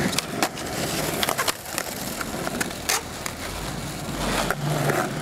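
Skateboard wheels rolling and grinding over rough tarmac, with a series of sharp wooden clacks of the deck hitting the ground.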